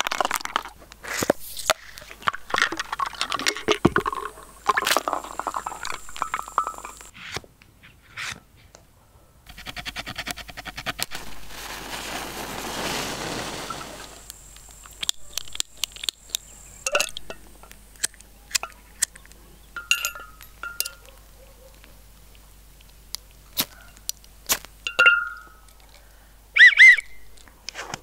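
Handling noises of a plastic survival-kit tube and a large glass jar: scattered clicks, knocks and glassy clinks. In the middle comes a few seconds of water sloshing in the jar. Near the end there is a short, loud, high-pitched tone.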